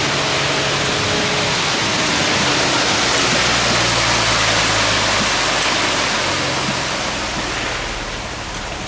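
Front-discharge concrete mixer truck pouring concrete down its chute into a footer trench: a loud, steady rushing noise with a low engine hum beneath, easing a little near the end.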